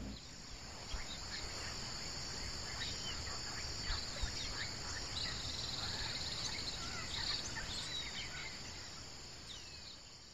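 Countryside ambience: a steady, high-pitched chorus of insects with scattered short bird chirps, fading out near the end.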